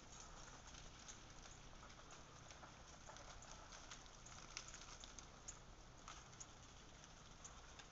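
Faint, scattered patter of small ticks: ice and meltwater dropping out of ice-coated trees as the glaze melts, a few drops a little louder about halfway through.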